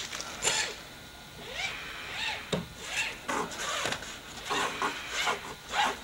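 Coiled steel MIG gun liner being pulled out through the brass connector plug of the torch cable, scraping and rasping in a run of short uneven pulls with occasional squeaks.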